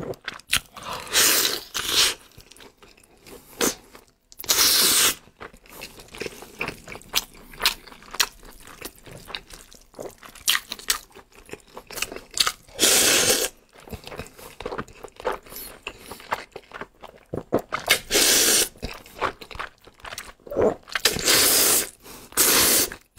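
Close-miked eating: wet chewing and smacking on a sauce-glazed wing, with several long slurps of zhajiangmian noodles, each lasting about a second.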